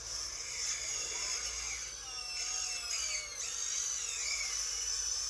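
Hydraulic-converted Huina 1592 RC excavator's small electric pump and motors whining high and steady, with whines that rise and fall in pitch as the boom and bucket dig.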